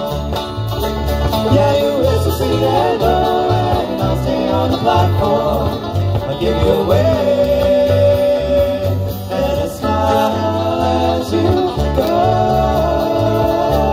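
Live bluegrass band playing an instrumental passage: fiddle with long, sliding notes over banjo, mandolin and acoustic guitar, backed by electric bass and drums.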